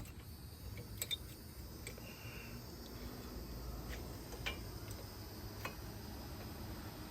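A handful of short, isolated clicks and taps, two close together about a second in and others scattered after, from hand tools and brake parts being handled, over a low steady rumble.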